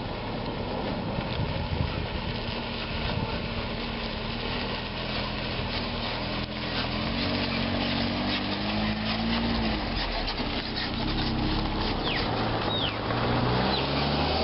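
An SUV towing a small caravan drives slowly past at low engine speed, its engine running steadily and getting louder as it comes close, with tyres crunching and popping over a rough stone-and-gravel road.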